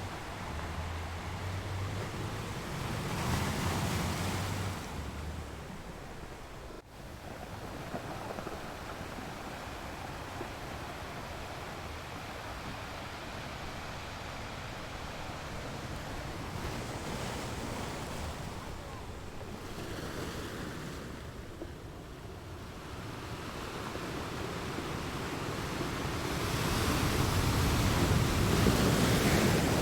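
Ocean surf: waves washing in as a steady rush that swells and fades. One wave breaks a few seconds in, another in the middle, and the loudest builds near the end.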